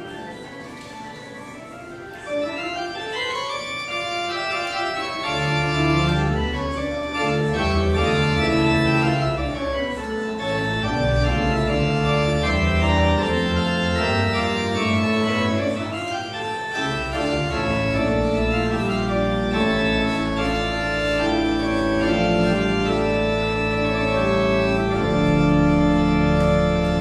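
Organ music: sustained full chords over running melodic lines, growing louder a couple of seconds in, with a deep pedal bass entering about five seconds in.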